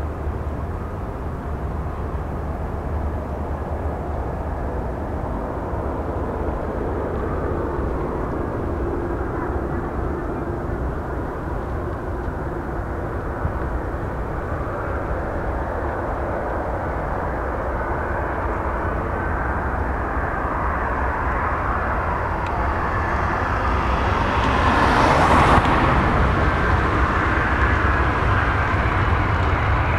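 Boeing 767-300 jet airliner on final approach, its engine noise a steady rush that grows louder as it nears and peaks with a loud surge about five-sixths of the way through as it passes low over the runway. A faint whine slides slowly down in pitch through the second half.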